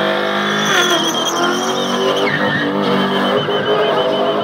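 V8 car doing spinning donuts: the engine is held at high revs, its pitch rising and falling, while the spinning rear tyres squeal against the tarmac.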